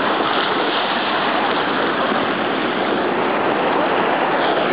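Sea surf washing in over the shallows at the shoreline, a loud, steady rush of water.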